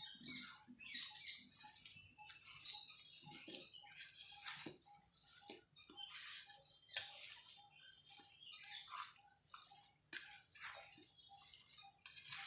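Hand mixing and squeezing a mashed banana and spice mixture in a steel plate: soft, repeated squishing and scraping strokes, about two a second.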